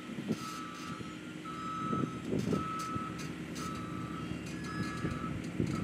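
Link-Belt 210 X2 excavator moving, its travel alarm beeping about once a second over the running diesel engine, with a few clanks.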